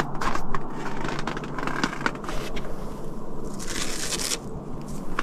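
Ice and frost being crunched and scraped. It is a dense, irregular run of crackles, with a brighter, harsher patch about three and a half to four seconds in.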